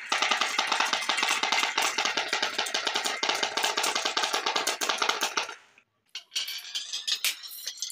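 Dozens of glass marbles rolling down a wooden wave-grooved marble run and dropping into a cardboard box, a dense rattle of fast clicks and clacks. It stops abruptly about five and a half seconds in, and sparser clicking of a few marbles starts up again shortly after.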